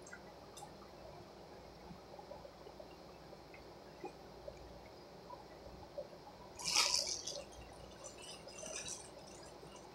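Thin plastic wrapper crinkling in the hands: a loud rustle about seven seconds in and a softer one around nine seconds. Between them, faint wet clicks and smacks of chewing.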